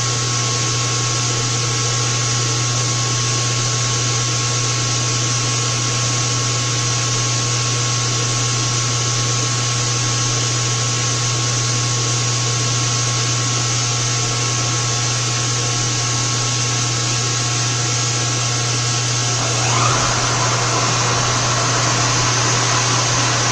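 Steady hum and fan-like rush of a powered-up CNC milling machine, with a low hum and a faint steady whine. About twenty seconds in the sound shifts: a short rising sweep, the whine drops out and the noise gets slightly louder.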